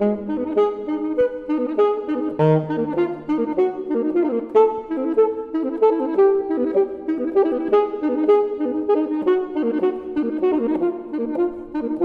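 Instrumental outro music with a busy melody of quick notes.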